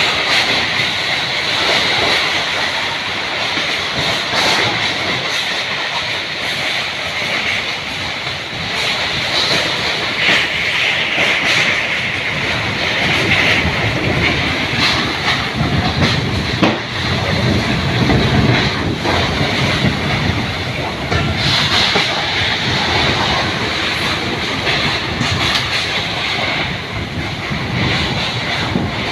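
Strong wind blowing steadily with a loud hiss and scattered rattles, and a low rumbling surge of gusts on the microphone around the middle.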